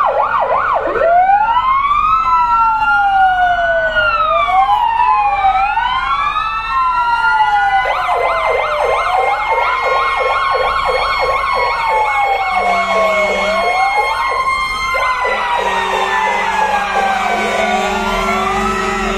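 Several fire engine sirens sounding together. Slow wails rise and fall over fast yelps at about four a second.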